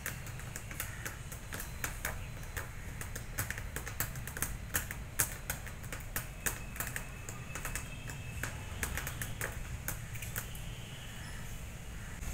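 A cat's claws clicking and tapping against a car tyre and wheel arch as it paws up at them: a quick, irregular run of sharp clicks, thickest in the middle, over a low background rumble.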